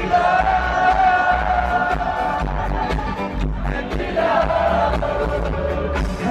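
A live reggae band playing through a festival PA, heard from within the crowd: heavy bass, and a singer holding two long notes, the second about four seconds in. Crowd noise runs under the music.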